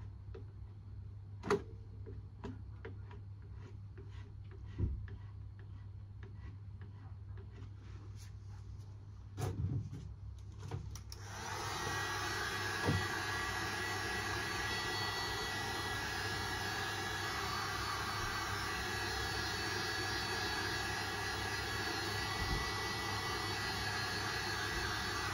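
Light taps and clicks over a low hum, then about eleven seconds in a small electric motor with a fan starts and runs steadily with a rushing noise, stopping near the end.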